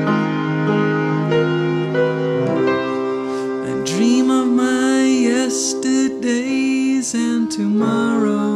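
An upright piano and two clarinets playing a slow song together.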